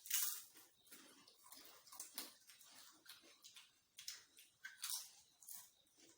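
Potato chips being crunched and chewed close to the microphone: a run of short, irregular crackles.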